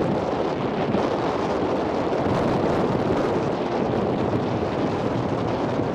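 Wind buffeting the camera's microphone: a steady, loud rushing noise.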